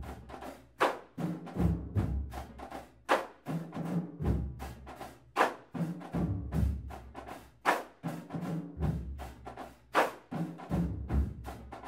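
Marching band drumline playing a slow beat: a cymbal crash about every two and a half seconds over snare and bass drum hits, with low steady bass tones underneath.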